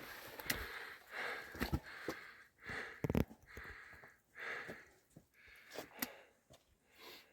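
A hiker breathing hard while climbing a steep trail, in quick regular breaths about one a second. Footsteps and short clicks come through underneath, with a heavier thud about three seconds in.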